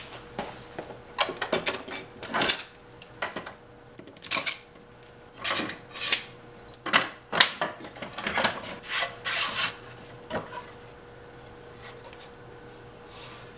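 Bar clamps being loosened and slid off a glued-up wooden table top: an irregular run of short metal scrapes and clicks, stopping about ten seconds in.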